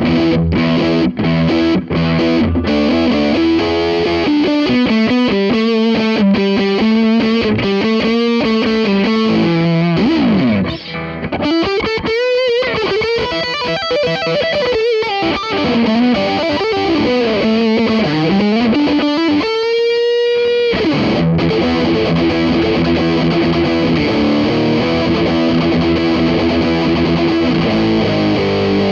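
Electric guitar played through an MXR Custom Badass '78 Distortion pedal. It opens with chopped distorted chords, moves into a lead line with string bends and vibrato (one long bent note with wide vibrato is held near the middle), then returns to sustained distorted chords.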